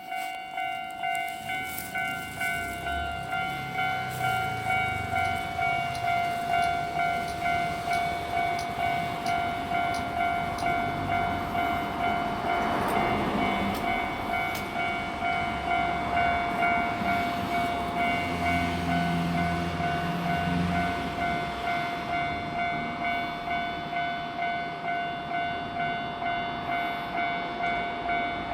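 Japanese level-crossing warning bell ringing in an evenly repeating, steady clang at a Keikyu crossing. A train passes with a broad rush of noise a little before the middle, and a low motor hum follows a few seconds later.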